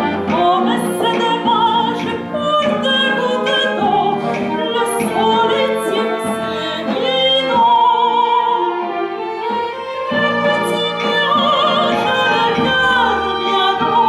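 A woman singing an operetta song with strong vibrato, over instrumental accompaniment.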